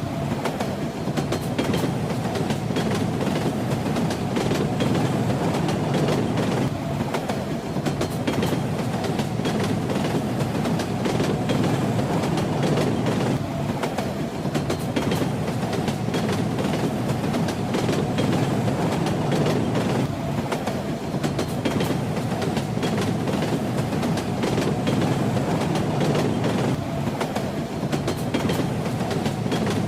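Train in motion: a steady low rumble with the rattle and clickety-clack of the wheels over the rails.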